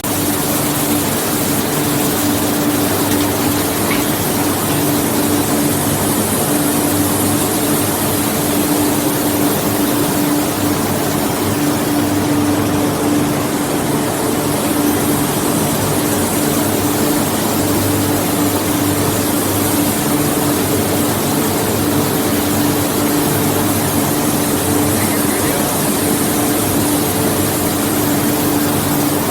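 Ring rolling machine running in a forge: a loud, steady mechanical drone with a constant hum over an even wash of noise, unchanging throughout.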